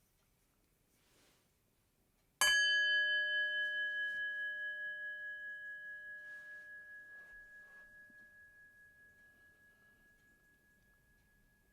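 Meditation bell struck once, about two seconds in, sounded as a mindfulness cue. It rings with a clear high tone over a lower hum and fades slowly over about nine seconds, its tone wavering in a steady pulse as it dies away.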